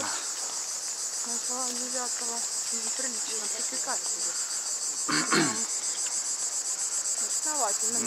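Cicadas chirring in a dense, steady, high-pitched chorus with a fast pulsing texture. Faint voices and one brief louder sound come through about five seconds in.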